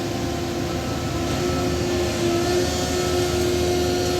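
Heavy machinery engine running steadily at a concrete pour, a constant drone with a steady tone that dips briefly in pitch about two seconds in.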